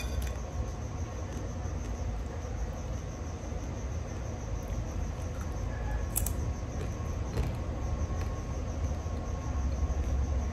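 Steady low rumble with a faint constant hum and a few soft clicks, the clearest about six seconds in.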